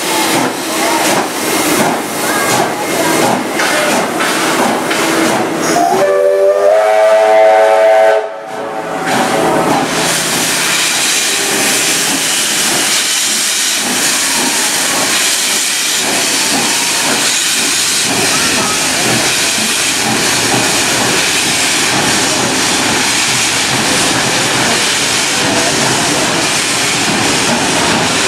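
Steam locomotive 3642 working hard, its exhaust beating quickly. Its whistle then sounds for about two seconds as a chord of several notes and cuts off sharply. A steady loud rushing hiss of steam and train follows.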